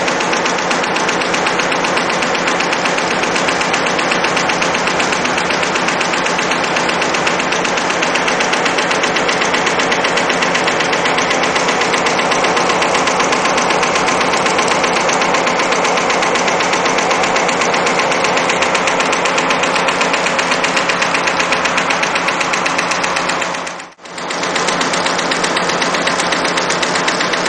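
Industrial multi-head embroidery machine stitching at speed, applying sequins and rattail cord: a loud, steady, rapid mechanical clatter of the needle mechanism. Near the end it drops out for a moment, then resumes.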